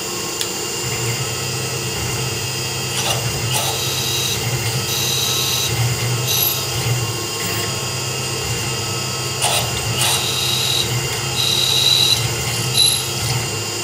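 Tormach PCNC 1100 CNC mill drilling small holes in a stainless steel plate with a 3/32-inch drill bit, with flood coolant spraying. The spindle gives a steady hum and whine, and a high squealing tone comes and goes several times as the bit cuts.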